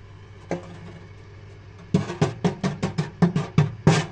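A spoon tapping in a fast run of sharp knocks, about five a second, starting about two seconds in, as baking soda is shaken off it over the oven floor. A steady low hum sits underneath, with a single knock about half a second in.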